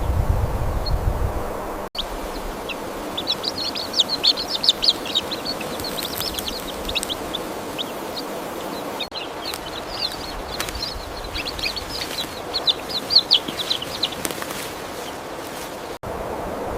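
Small songbird giving rapid, high chipping and twittering calls in two bouts over a steady hiss of forest background; a low rumble sounds in the first couple of seconds.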